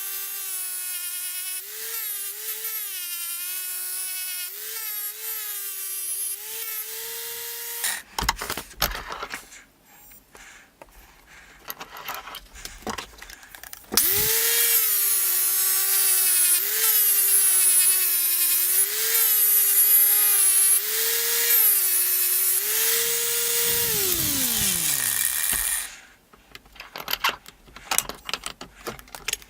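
Electric power tool running, its motor whine dipping and recovering in pitch as it is pressed into the work. It stops about eight seconds in, with clicks and handling noise. It starts again about fourteen seconds in, louder, and winds down with a falling whine as it is switched off near the end.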